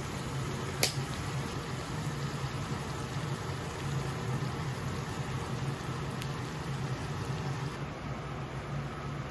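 Okonomiyaki sizzling steadily on a hot teppan griddle, over a constant low hum. A single sharp click sounds about a second in.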